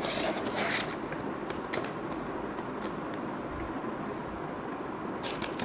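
Paper and cardboard rustling as a folded instruction leaflet is drawn out of a small cardboard box, with a burst of crinkling in the first second and scattered light clicks after.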